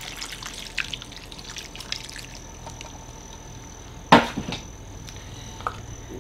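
Broth dribbling from a measuring cup into a crock pot, in small trickles and drips. About four seconds in, one sharp clunk as the measuring cup is set down on a stainless steel counter.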